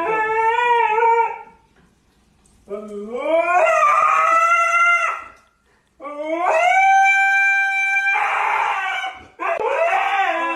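A dog howling in four long drawn-out calls. Each call glides up in pitch and then holds; the third turns breathy near its end.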